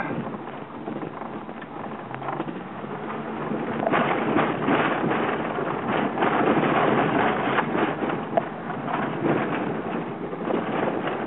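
Jeep Grand Cherokee driven hard over dirt, heard from inside the cabin: the engine note rises about two seconds in as it accelerates, over a dense rumble of knocks and rattles and wind noise.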